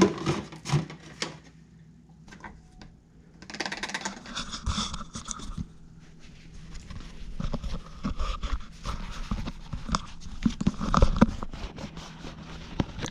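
Clicks, knocks and scraping from handling a plastic oil bottle and funnel while topping up an engine's oil, with a short hissing rush about four seconds in.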